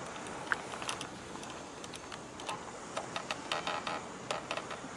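Irregular light clicks and ticks, most of them in the second half, over a steady hiss. They are likely handling noise from the camera and tripod as the shot pans.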